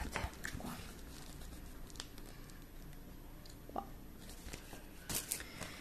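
Faint rustling and crinkling of a padded paper bubble mailer being handled, with a few light clicks and a brief louder rustle about five seconds in.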